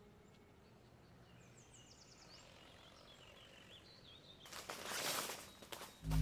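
Quiet ambience with a few faint, high chirps, then a swelling rush of noise, a whoosh or rustle, about four and a half seconds in that dies away just before music starts.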